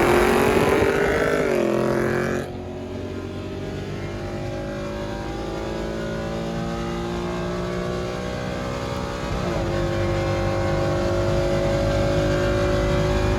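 Car engine pulling hard under acceleration. The note drops about one and a half seconds in, as at a gear change. After an abrupt cut, a steadier engine note climbs slowly in pitch, with another shift-like dip about nine and a half seconds in.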